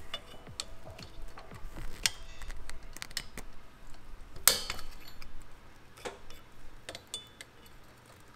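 Small metal clicks and clinks of a drum brake's shoe retainer springs and pins being worked loose with pliers, with a louder clink about four and a half seconds in.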